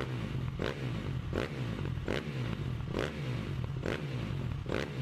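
End-card background music with a steady beat, about four beats every three seconds, over a repeating low bass line.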